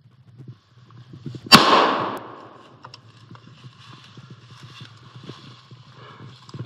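A single hunting-rifle shot about one and a half seconds in, taken at a running red deer stag, with a short echo trailing off. Light irregular rustling and footfalls in the undergrowth go on around it.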